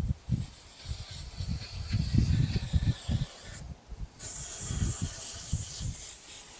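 Aerosol oven cleaner spraying in a long hiss, which stops briefly a little past halfway and then resumes. Low bumps and rumbles run underneath and are the loudest part.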